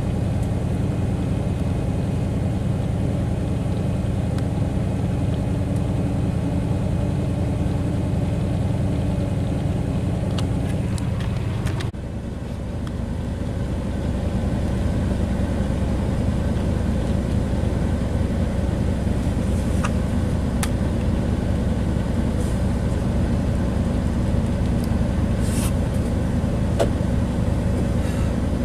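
Motorhome engine running steadily, heard from inside the cab as a low hum. About twelve seconds in the sound drops suddenly, then builds back up to the same steady level.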